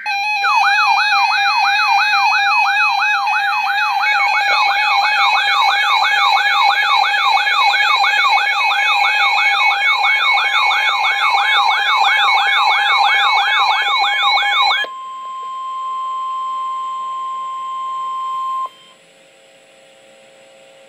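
Emergency Alert System alert tone for a severe thunderstorm warning: a loud, siren-like warble sweeping up and down about two to three times a second for about fifteen seconds. It then changes to a steady single tone for about four seconds, which cuts off to a faint hum.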